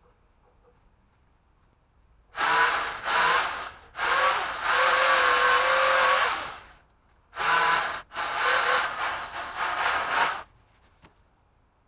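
Powered pole saw's motor revving up and cutting out in a run of trigger pulls: five bursts, each with a whine that rises quickly and falls off. The longest burst is held for about three seconds near the middle, and the motor falls silent between bursts.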